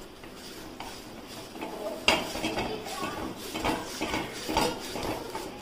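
Cooked wheat rotis being stacked and pressed down by hand on a pan: soft rustling and scraping with a few light clinks, and a sharper knock about two seconds in.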